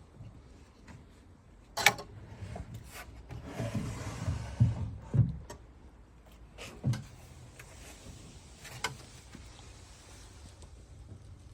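Wooden cabinet being handled: a sharp click about two seconds in, then a stretch of sliding or scraping with several low thumps in the middle, and a few more knocks later on.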